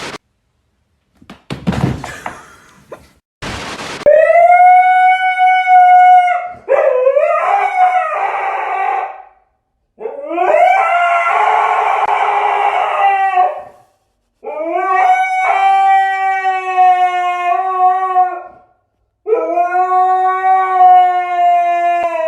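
A dog howling: about five long, drawn-out howls with short breaks between them, most held at a steady pitch and one wavering up and down. A few short scuffing noises come before the first howl.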